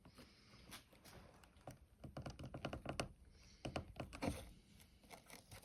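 Handling noise from a multitool being worked in the hands: a run of quick clicks, taps and light knocks with some rustling, busiest in the middle, with the loudest knock a little past four seconds in.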